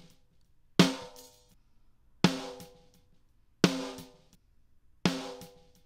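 Sampled snare drum hits played back through a compressor in RMS mode, four strikes about one and a half seconds apart. Each strike is a sharp crack followed by a ringing tone that dies away within about a second. The transients still come through.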